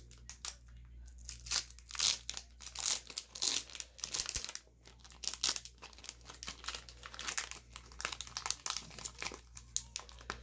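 Foil Pokémon booster pack wrapper crinkling and crackling in the hands as it is peeled open, in a quick, irregular string of crackles.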